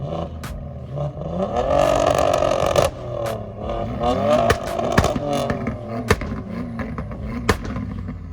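A car engine with a loud exhaust is revved hard. It climbs to a high held note for about a second, then falls and rises again, with sharp exhaust pops and bangs cracking through the revs.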